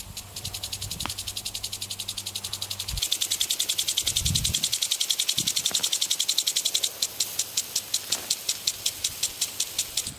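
Field insects chirping in a fast, even pulse, several chirps a second, growing louder about three seconds in. A low steady hum underneath stops at about the same moment.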